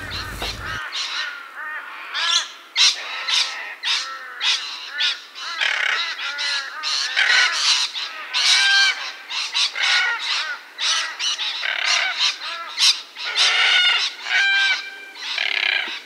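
Red-tailed black cockatoos calling repeatedly, many calls following one another closely.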